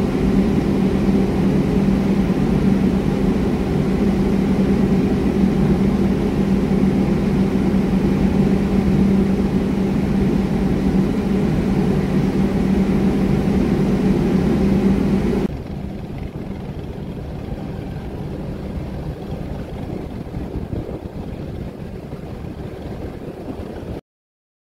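Ship engines running with a steady low drone and a strong humming tone. About two-thirds of the way through, the drone drops abruptly to a quieter, even rumble, and the sound cuts off just before the end.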